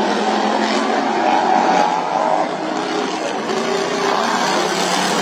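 Racing lawnmower engines running hard, several at once, their pitch shifting as they rev and change speed.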